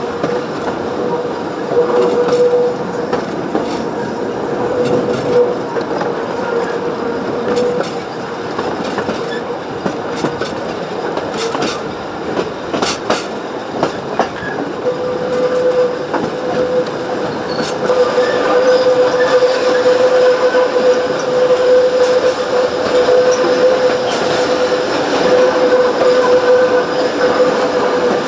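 Early-1900s wooden narrow-gauge carriages of a steam-hauled train rolling along the track, heard from a carriage window: a steady rumble with wheels clicking over rail joints. A steady wheel squeal on the curves comes and goes, strongest and continuous over the second half.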